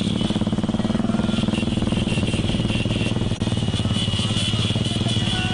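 A motor vehicle engine running steadily close by, with a fast, even pulse. There is a single sharp click a little over three seconds in.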